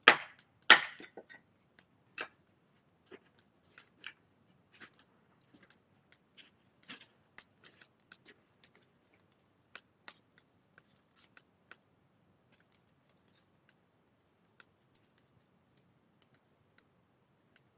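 Firewood knocking and cracking: two sharp knocks about a second apart near the start, then scattered small cracks and clicks.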